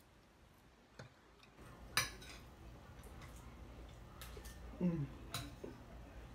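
Eating sounds: a metal fork clicking and scraping against a plate of grits and bacon a few times, the sharpest click about two seconds in, with chewing in between.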